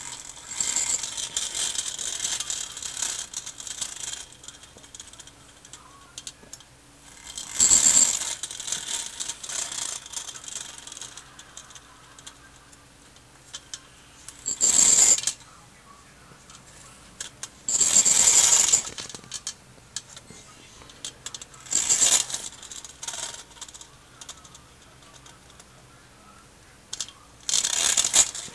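Tin-plate toy helicopter's mechanism whirring with a metallic rattle as it spins the rotor, in six bursts: a longer one at the start, then shorter ones of about a second each.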